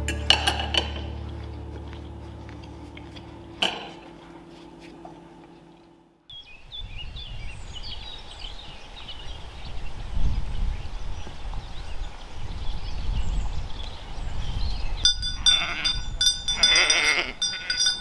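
Background music fades out over the first few seconds. After a cut come outdoor sounds: a low gusty rumble like wind on the microphone and birds chirping. Near the end, sheep's bells start jangling.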